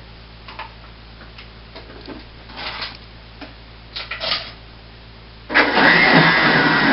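A few light knocks and clatters as the countertop blender is handled. About five and a half seconds in, the blender starts up and runs with a loud, steady whir, blending almond milk with spices and sweetener.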